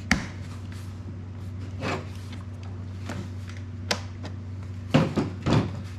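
Plastic clicks and knocks as the Honda EU3000i generator's body panels and trim pieces are handled and pressed into place, with a couple of louder knocks near the end.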